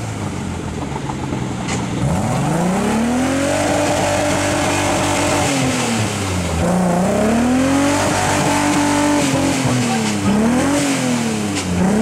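Engine of a small off-road 4x4 stuck in deep mud, revving hard again and again as its wheels churn: two long revs held for a few seconds each, then quicker blips near the end.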